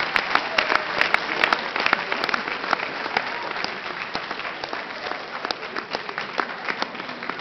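An audience applauding, with individual hand claps standing out over the general clapping, which slowly dies down.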